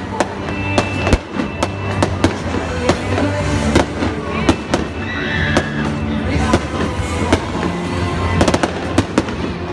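Fireworks show: many sharp bangs going off in quick, irregular succession, over music playing throughout.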